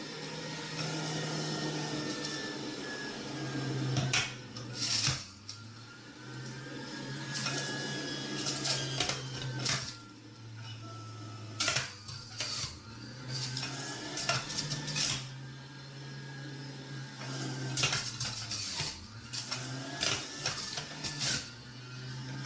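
Stainless-steel centrifugal juicer running as spinach and other produce are pushed down its feed chute. The motor whine sinks and recovers again and again as each load is pressed through, over a steady hum, with clatters and knocks from the produce and pusher.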